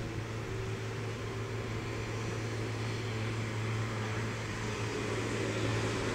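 A work train of loaded flat wagons rolling past on the rails, a steady rumble with a steady low hum.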